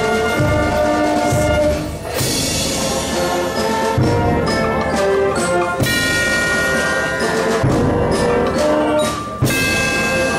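Marching band playing a slow piece: brass holding sustained chords over heavy bass drum strokes about every two seconds, with tubular bells ringing.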